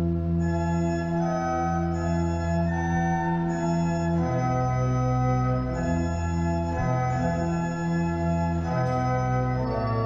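Church organ playing slow, sustained chords over held bass notes, the chords changing about once a second.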